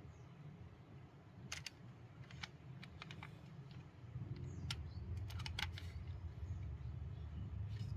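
Toy cars being handled: scattered light clicks and taps, a few at a time, over a low rumble that grows louder about halfway through.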